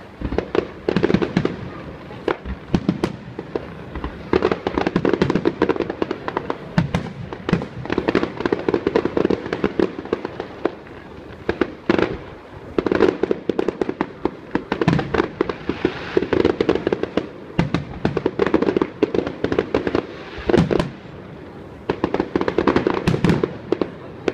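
Fireworks display: a steady run of shells bursting in sharp bangs, with stretches of dense rapid crackling from crackle-effect shells between them.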